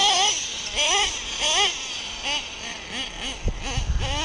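Children's high-pitched wordless calls and squeals, a few short rising-and-falling shouts in quick succession. A few low thumps come near the end.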